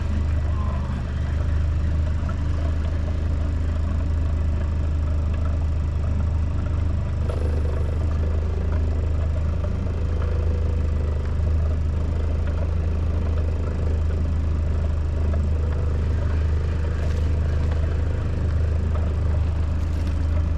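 A motor running steadily with an unbroken low drone, with light rattles and scrapes over it.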